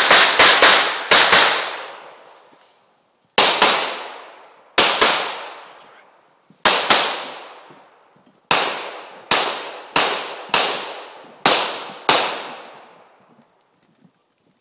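Pistol shots fired in a practical-shooting stage: a fast string of about six shots to open, then pairs and singles every second or two, about eighteen in all. Each crack is followed by a long echo that dies away over a second or more.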